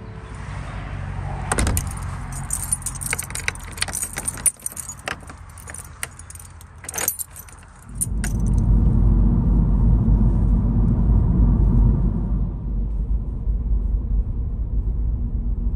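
Inside a moving car: a run of small metallic jingling and clicking sounds over the road noise for the first half, then a steady loud rumble of the tyres and engine from about eight seconds in.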